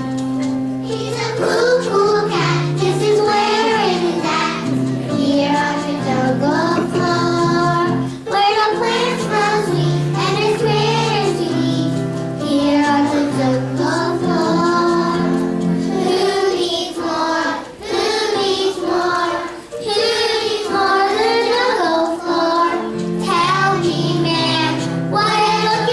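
Children singing a song over an instrumental accompaniment with sustained low notes.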